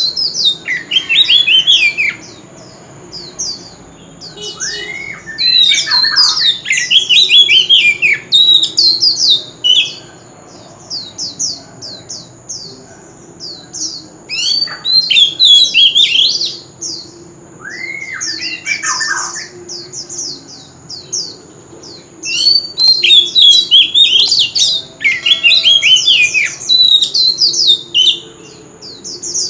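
Oriental magpie-robin singing in loud bouts of rapid, varied whistles, chirps and harsh notes, with short pauses between phrases. A steady high-pitched tone runs underneath.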